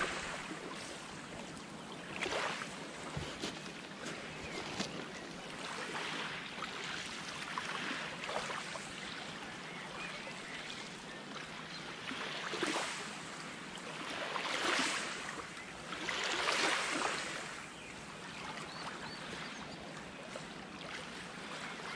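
Small waves lapping at a lake shore: a steady wash of water, with a few louder surges in the second half.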